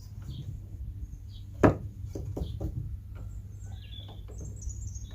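Wooden 2x2 window trim and clamp being worked: one sharp wooden knock a little under two seconds in, then a few lighter clicks. Birds chirp faintly in the background near the end.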